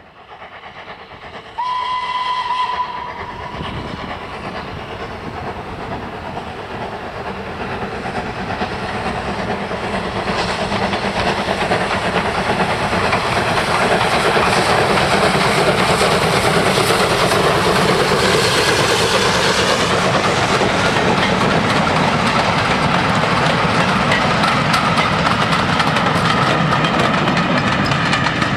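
A steam locomotive's whistle gives one short blast about two seconds in. Then the locomotive and its train run past, the sound growing louder through the first half into a steady rumble and clatter of wheels over rail joints.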